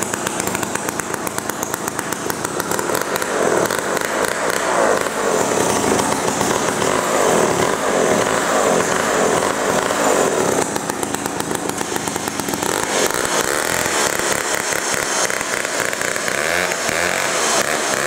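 JOBU Junior Super chainsaw's 93 cc two-stroke engine running, its speed rising and falling with the throttle.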